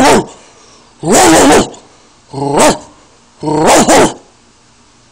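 A person imitating a dog at close range: a run of four loud barks about a second apart, each opening with a short low growl.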